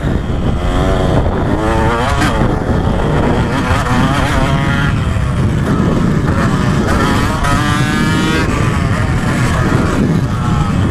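KTM 125SX two-stroke single-cylinder motocross engine revving under riding load, its pitch climbing and dropping several times as the throttle is worked, heard from the bike itself.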